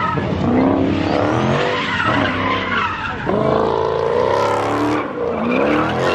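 Cars drifting on a concrete lot: engines revving up and down over and over as tires squeal and skid.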